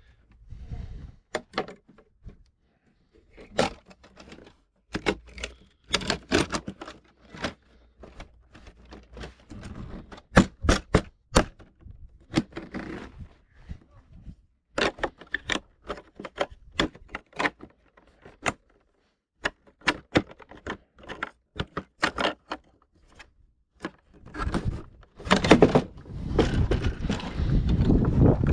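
Irregular plastic clicks, knocks and taps from hands working the trim pieces of a Porsche Panamera rear door panel, with a denser scraping noise in the last few seconds.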